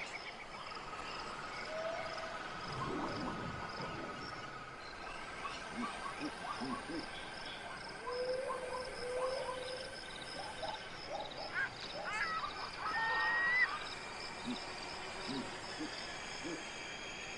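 Wildlife ambience of many small animal calls: short chirps and gliding whistles over a steady high trill, with a louder whistle about 13 seconds in.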